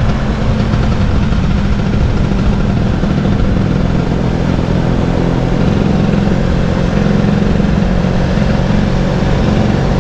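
Vespa scooter engine running steadily.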